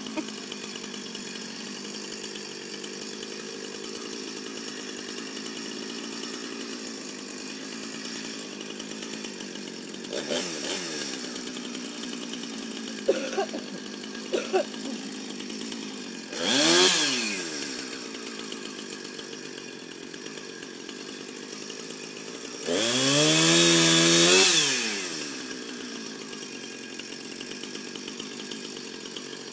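Husqvarna two-stroke chainsaw idling, with several throttle blips and two revs that rise and fall back to idle. The second rev is the longest and loudest, held about two seconds.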